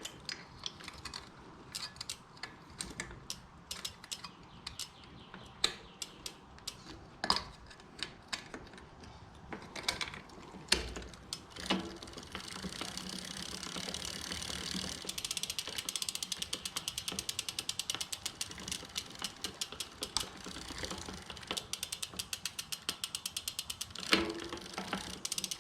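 Bicycle freewheel pawls ticking in a fast, even run from about halfway through as the drivetrain spins, after scattered clicks and knocks of the bike being handled.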